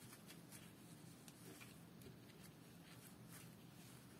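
Near silence, with faint soft ticks and rustles scattered throughout from a crochet hook pulling loops of thick yarn through stitches while a decrease is being worked.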